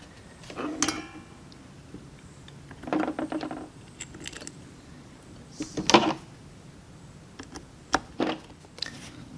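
Small metal parts and tools clinking and tapping on a workbench as tiny screws for a carburetor's starting-carburetor cover are handled, in a few separate bursts with the loudest clink about six seconds in.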